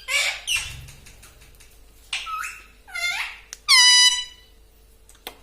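Indian ringneck parakeet making a series of short, pitched calls, with a long, harsh, loud screech about four seconds in.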